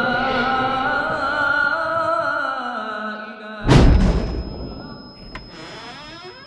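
Horror-trailer score: a held, wavering voice-like drone that slowly sinks in pitch, cut off about three and a half seconds in by a deep boom that dies away under a thin, steady high tone.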